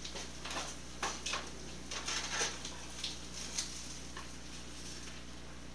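Light clinks and taps of dishes and kitchen utensils being handled at the stove: several short, faint knocks spread over about four seconds.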